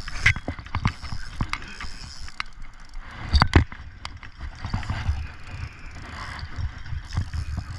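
Irregular clicks and knocks over a low rumble: fishing rod and reel gear handled right against a body-worn camera during a fish fight, with a sharp double knock about three and a half seconds in.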